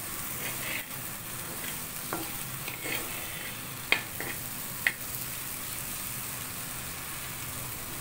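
A metal spatula stirring and scraping bottle gourd seeds, onion, garlic and chillies in a pan with no oil yet, under a steady sizzle. A few sharp clicks of the spatula against the pan come in the first five seconds.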